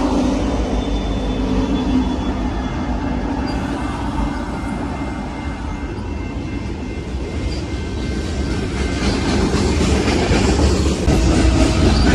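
Freight train passing close by. An SD90/43MAC diesel locomotive's engine fades as it goes past, then flatcars and boxcars roll by with steady wheel and rail noise. Another locomotive's engine grows louder near the end.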